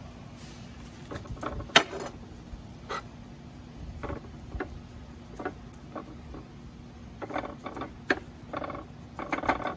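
Sesame seeds rattling out of a small jar and scattering onto ceramic plates while tuna steaks are pressed into them: light scattered clicks and short rattles, with one sharp click about two seconds in and a busier run of rattling near the end.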